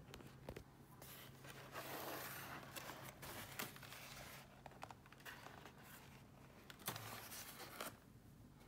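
Faint rustling and crinkling of plastic parts bags being handled, with small clicks and scrapes, dying down near the end.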